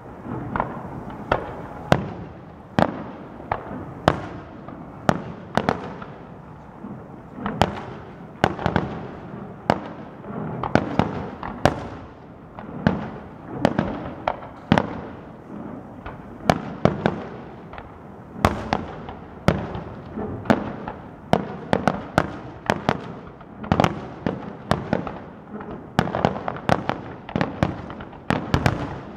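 Aerial firework shells bursting one after another: sharp bangs, each trailed by a rumbling echo, about one or two a second and coming more thickly near the end.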